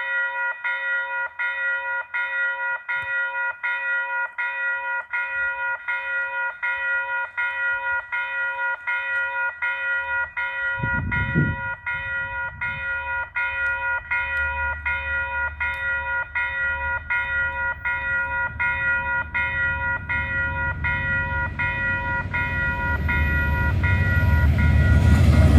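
Level crossing warning bell ringing steadily at about three strokes a second, with a brief low rumble about eleven seconds in. Over the last few seconds the rumble of an approaching train builds up under the bell.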